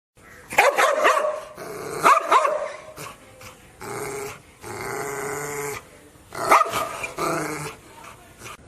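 A dog barking in sharp bouts: several barks in the first two and a half seconds and another bout after six seconds, with longer held growls in between.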